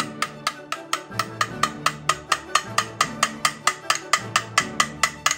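Background music with a quick, steady ticking beat, about five or six ticks a second, over a stepping bass line.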